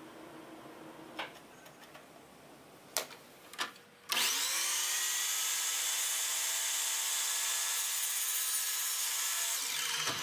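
Electric miter saw starting with a rising whine, running steadily for about six seconds while it crosscuts a hardwood dowel, then winding down near the end. A few light knocks come before it starts.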